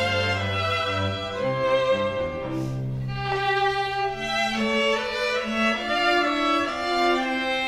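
Background music of bowed strings, with held notes changing every half second or so.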